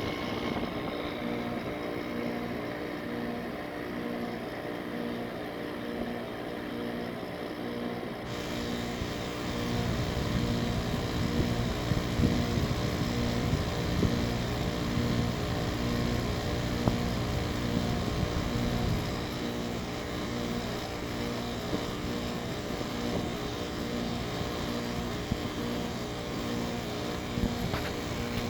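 GE 5050 BTU window air conditioner running steadily, its Samsung R-22 rotary compressor humming under the blower fan. Wind rumbles on the microphone from about ten seconds in until about nineteen seconds.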